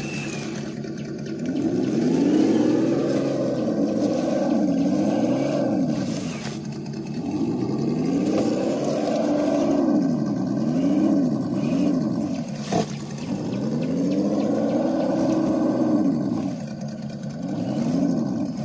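Traxxas TRX-4 Bronco RC crawler's electric motor and geared drivetrain whining under throttle as it climbs a rock, the pitch rising and falling with each throttle push, sometimes in quick short blips. One sharp knock about two-thirds through.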